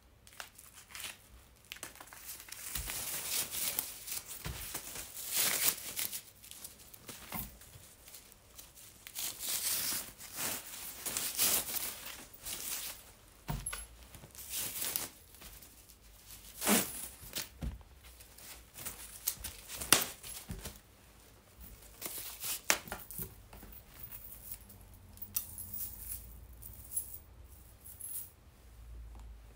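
Packaging wrap being handled and pulled open by hand: irregular rustling in bursts of a second or two, with a few sharp clicks.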